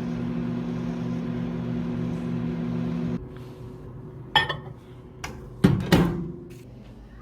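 A steady electric hum with a low pulsing that cuts off abruptly after about three seconds. A fainter hum follows, broken by a few sharp knocks and a clatter.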